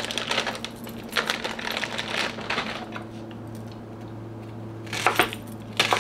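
Plastic produce bag crinkling and rustling as a red onion is taken out, then a chef's knife cutting the onion on a cutting board, with two sharp knocks of the blade near the end.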